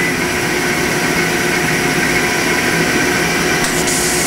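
Hardinge CHNC4-16C CNC chucker running a cycle with its spindle at about 2,000 RPM: a steady mechanical hum and whine while the turret slide moves. A brighter hiss joins in near the end.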